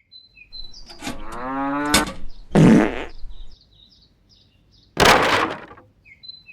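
Cartoon soundtrack of birds chirping, broken by a buzzy rising tone that sounds like a fart, set between clicks, about a second in. Two short loud bursts of noise follow, near the middle and about five seconds in.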